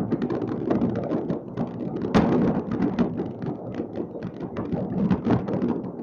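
Many fireworks going off at once across a city: a dense, continuous crackle of pops and booms, with one louder, sharper bang about two seconds in.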